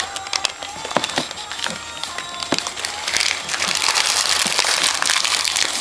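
Gift wrapping paper crinkling and rustling as it is handled and pulled, a dense crackle that thickens in the second half.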